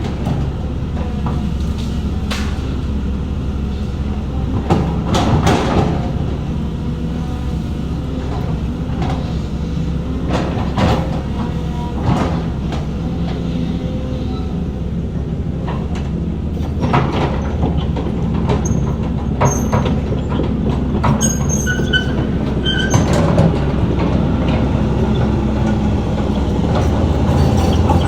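Diesel engine of heavy earthmoving machinery running steadily under load, with frequent sharp metallic clanks and knocks and a few brief high squeals in the second half.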